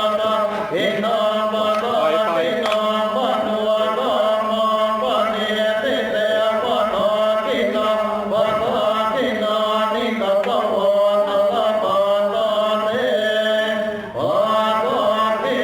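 Buddhist chanting by several voices, going on without a break over a steady hum.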